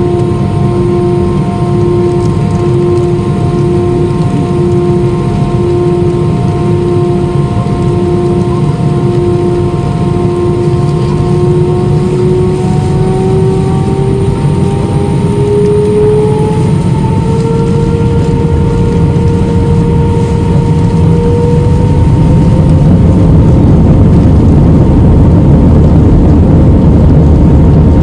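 Airbus A320 jet engines heard from inside the cabin, spooling up: a whine rises in pitch over about ten seconds above a steady rumble, and the engine noise grows louder about 22 seconds in, typical of thrust being set for the takeoff roll.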